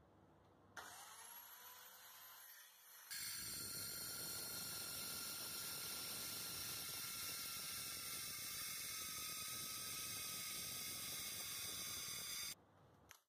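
A Worx compact circular saw whines as it spins up, then cuts through thick sheet metal clamped between two sheets of plywood. The cut is a dense, much louder grinding noise with steady high-pitched ringing tones over it, lasting about nine seconds and cutting off sharply near the end.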